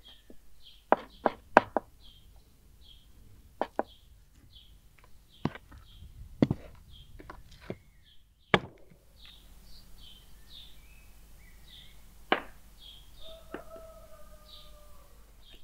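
Sharp knocks of a knife chopping on a cutting board, in short irregular groups with pauses between, while small birds chirp over and over.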